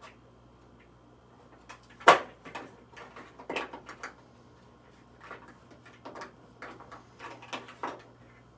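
Small hard makeup containers being handled and set down: one sharp clack about two seconds in, then a run of lighter clicks and taps.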